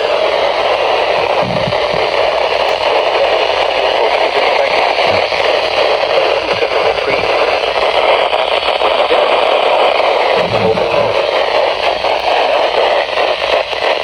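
Radio static: a steady, fairly loud hiss with some crackle from a radio receiver, with no voice or alert tone coming through.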